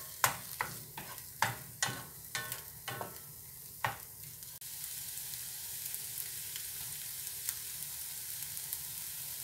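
A spatula scrapes and taps against a frying pan while stirring egg bhurji with capsicum, about two strokes a second. The stirring stops about four seconds in, leaving the steady sizzle of the egg and capsicum frying in oil.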